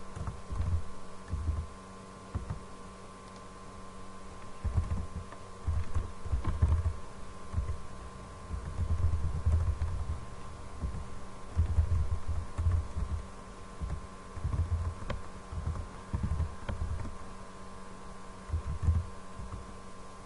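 Computer keyboard typing, picked up as dull low thumps in irregular bursts, over a steady electrical hum.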